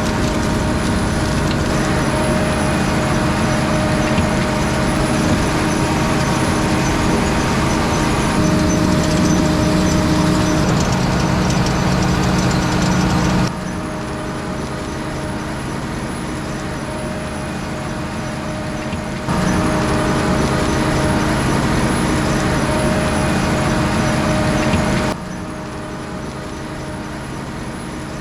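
Grimme Varitron 220 self-propelled potato harvester and tractors working in the field, a steady dense mechanical noise with a few fixed tones running through it. The level drops or jumps suddenly three times: a little before halfway, again about two-thirds in, and near the end.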